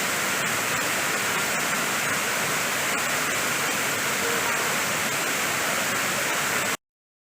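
Waterfall pouring: a steady, dense rush of falling water that cuts off suddenly near the end.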